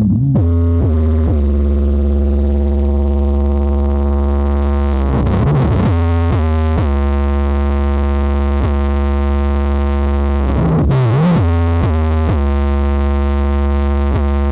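Car sound system with four 15-inch Hard Power subwoofers playing synthesizer music very loud, with heavy sustained bass. A swooping pitch glide comes three times, about every five and a half seconds.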